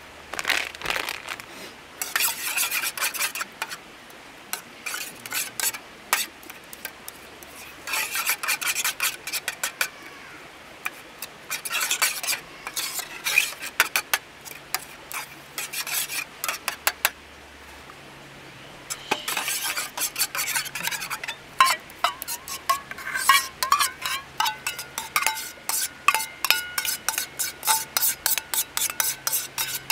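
A metal spoon stirs and scrapes a sauce in a small stainless steel bowl, in bouts of quick clinking and scraping with brief metallic ringing. Near the end the spoon scrapes the mixture out of the bowl into a pot in a fast run of clinks.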